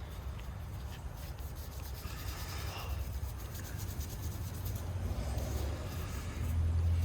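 Nevr-Dull cotton wadding polish being rubbed over a pocketknife's blade and handle: soft scrubbing strokes with light clicks, over a steady low rumble.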